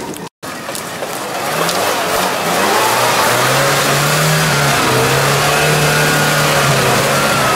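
UAZ-469 off-road vehicle's engine revving hard under load as it climbs out of a muddy ditch. The engine note rises over the first few seconds, then holds high and steady.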